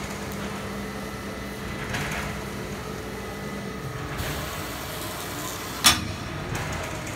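Automatic plastic film winder running: a steady mechanical hum whose low tone drops out a little past halfway, with one sharp clack near the end.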